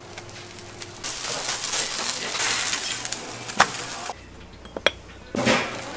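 Kitchen work sounds: a loud hiss from about a second in, broken by sharp clinks of glass or crockery, and changing abruptly twice.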